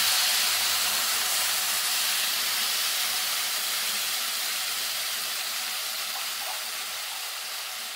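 Tamarind water poured into a pan of hot coconut oil and mustard seeds, hissing and sizzling loudly as it hits the oil and flashes into steam. The hiss slowly dies down as the liquid cools.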